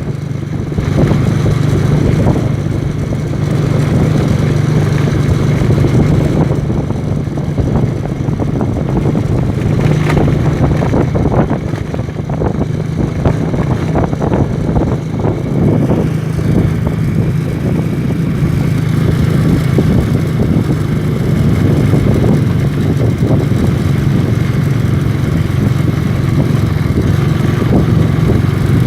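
Engine of a moving vehicle running steadily at cruising speed, with a constant low hum and frequent short rattles and clatter over it.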